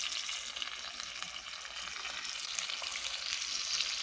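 Chicken pieces frying in olive oil in a pan: a steady sizzle with fine crackles.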